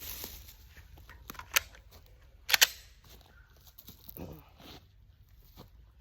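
Clicks and rattles of a pistol-caliber carbine and its magazines being handled, with two sharp metallic clicks about a second apart, the second the loudest.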